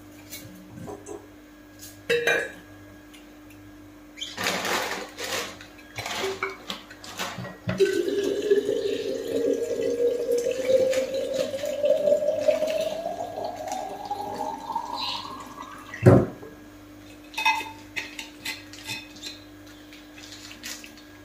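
Steel kitchen utensils clattering, then liquid pouring into a container, its pitch rising steadily for about eight seconds as it fills, cut off by a sharp knock.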